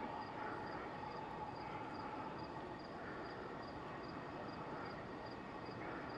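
Outdoor ambience: an insect chirps steadily in short high pips, about two to three a second, over a faint steady hum.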